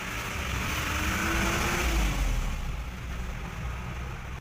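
A motor's steady rumble and whir, swelling to its loudest about halfway with a faint hum that rises and then falls, and cutting off suddenly at the end.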